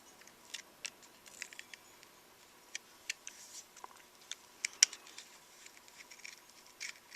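Small plastic clicks and light scraping as the camcorder's internal parts are lifted and nudged free by hand, with one sharper click a little under five seconds in.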